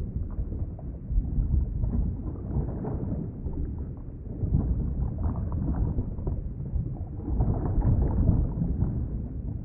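Underwater ambience: a muffled, low rumble of moving water that swells and eases every few seconds, with faint crackles.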